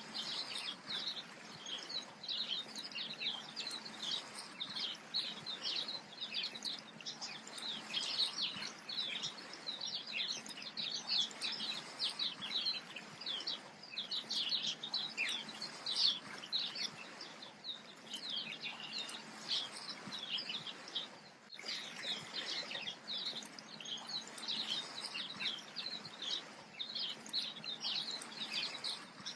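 A chorus of small birds chirping and twittering without pause: many short, high calls overlapping over a faint background hiss, with a brief break about two-thirds of the way through.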